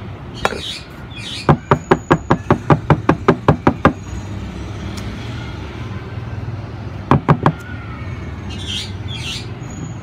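Quick series of knocks on a soil-filled bamboo planter, about six a second for over two seconds, then three more a few seconds later, as the soil is tapped down to settle it. Brief scratchy rustles of hands on the soil come before and after.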